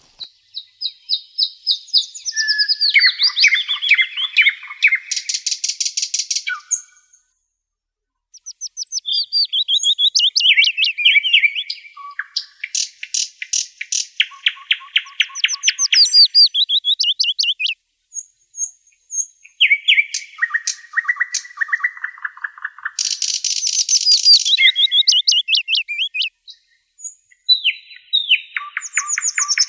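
Songbird singing a long run of varied phrases, fast trills and whistled notes, with a couple of short breaks of complete silence between phrases.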